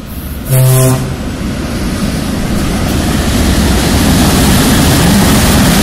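VL80K electric locomotive sounding a short horn blast, about half a second long, about half a second in. It then passes close by with its freight train, and the rumble of wheels on rails and the locomotive's running noise grow steadily louder.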